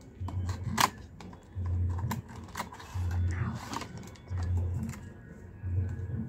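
Background music with a steady low beat, over the crackle and clicks of a cardboard box and clear plastic packaging being opened, with a sharp click about a second in and a longer rustle near the middle.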